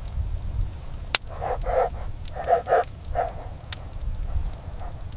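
A quick run of about six short animal calls, dog-like yaps, over a steady low rumble, with a sharp click just before them.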